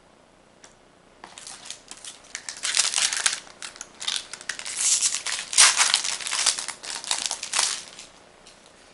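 Foil wrapper of a Magic: The Gathering booster pack being torn open and crinkled by hand: a dense, irregular crackling that starts about a second in and dies away shortly before the end.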